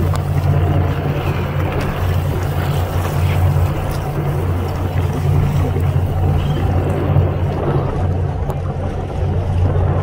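Charter fishing boat's engine running steadily with a low hum, over a wash of wind and water.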